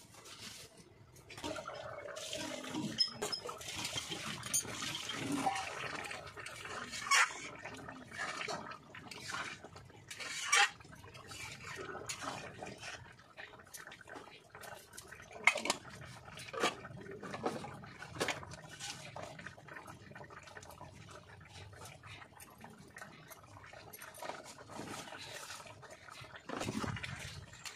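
Chicken curry sizzling and bubbling in a metal wok over a wood-fired mud stove, with scattered sharp metallic knocks and clanks of the lid and utensils against the pan.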